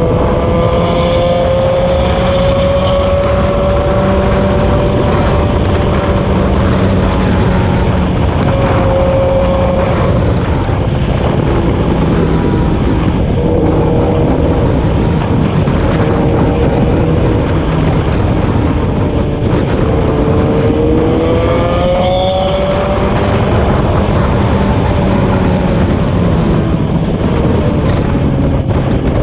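A motor vehicle travelling at highway speed, with steady wind and road noise. An engine note climbs in pitch as it accelerates in the first few seconds, and again about twenty seconds in.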